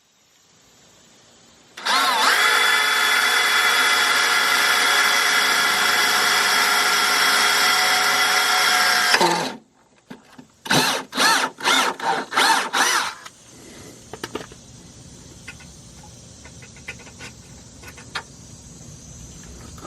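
Power drill drilling a mounting hole in the truck's underside. It runs at a steady speed with an even whine for about eight seconds, winds down, then gives five short bursts on the trigger, followed by faint clicks and handling.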